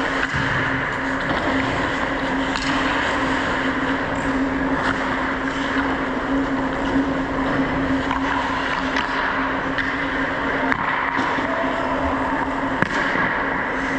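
Ice-hockey play: skate blades scraping and gliding on the ice, with scattered sharp clacks of sticks and puck, over a steady low hum.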